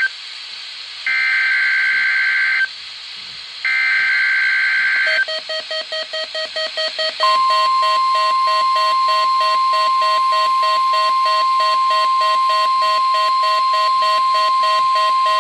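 NOAA Weather Radio emergency alert: two buzzy warbling SAME header data bursts, each about a second and a half long. About five seconds in, the weather radio receiver's alarm starts beeping rapidly, about three or four beeps a second. From about seven seconds the long, steady single-pitch warning alarm tone sounds over the beeps.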